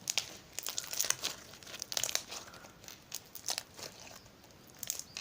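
Jelly cube slime, a glue slime with melamine sponge cubes mixed in, being squeezed and worked by hand, giving off irregular crunching crackles. It crunches well, which the maker puts down to its air bubbles and the sponge cubes.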